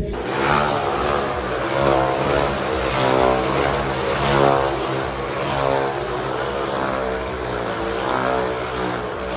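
Motorcycles riding inside a steel-mesh globe of death, their engines rising and falling in pitch again and again as they loop around the sphere.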